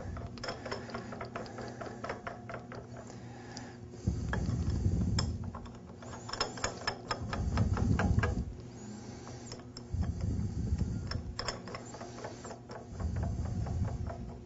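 Metal hex nuts being spun by hand onto the oiled threaded ends of a waterjet intensifier's steel tie rods: a run of small irregular clicks and rattles from nut on thread, with four bouts of low rumble.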